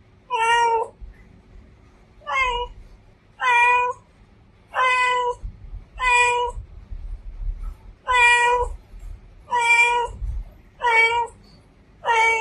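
Female domestic cat meowing over and over: about nine short meows, each about half a second long, coming every second or so.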